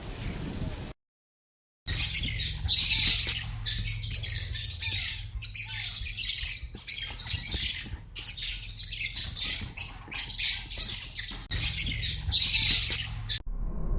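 Birds squawking in a dense run of harsh, noisy calls, cut off abruptly near the end. A brief hiss and a second of silence come before them.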